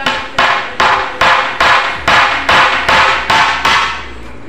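Claw hammer nailing the corner joint of a wooden door jamb frame: a steady run of about ten sharp blows, two to three a second.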